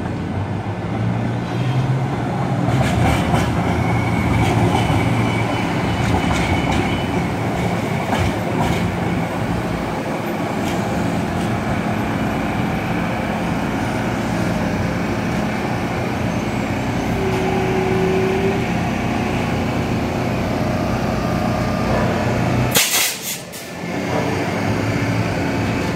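Nippon Sharyo P865 light rail train rolling slowly past close by: a steady rumble of wheels on rail with a low electric motor hum and some wheel clatter. There is a single sharp thump a few seconds before the end.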